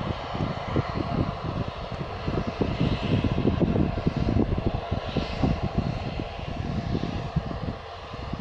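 Jet airliner's engines running loud and steady as the aircraft moves past, with an uneven, crackling low rumble. It eases slightly near the end.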